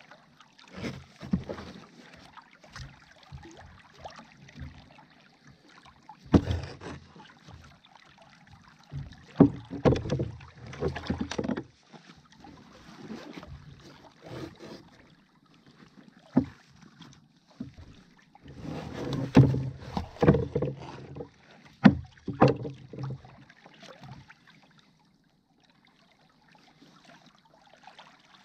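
Handling noise of a caught smooth-hound being unhooked on a plastic sit-on-top fishing kayak: irregular knocks, thumps and rustles against the hull, with busier spells about ten and twenty seconds in and a few sharp single knocks, dying away near the end.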